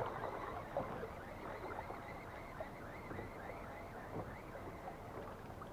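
Faint sound of river water around a small boat, with a run of light, quick ticks through the middle.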